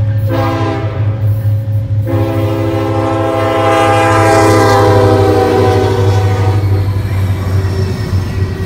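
Air horn of Union Pacific 1989, an EMD SD70ACe locomotive, sounding a short blast and then a long one. The long blast drops slightly in pitch as the locomotive passes close by, over the low steady rumble of the passing diesel locomotives.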